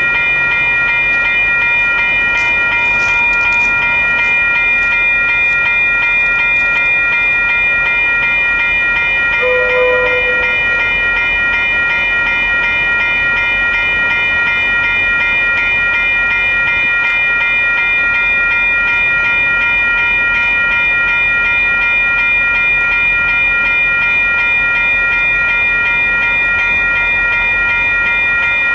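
Railroad grade-crossing warning bell ringing steadily and without pause while a train passes. About ten seconds in there is one short, lower horn-like tone.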